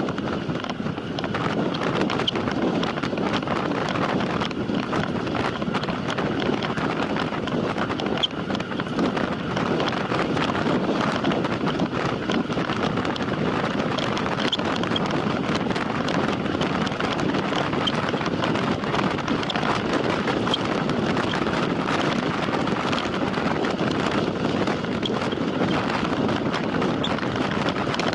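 Steady rush of wind on the microphone with tyre noise from a time-trial bicycle ridden at racing speed, with a few faint high ticks.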